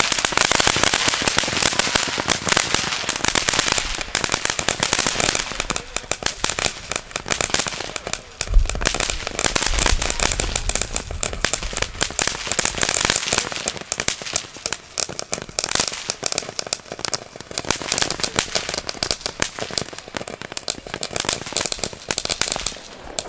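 Firework fountains spraying sparks with a dense, continuous crackle, and a deep thump about eight and a half seconds in.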